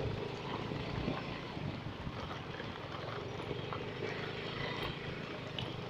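Steady engine hum and road noise from a moving vehicle, with faint rattles now and then.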